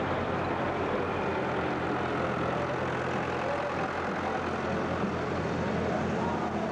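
Diesel engine of a farm tractor running steadily at low revs, without revving up.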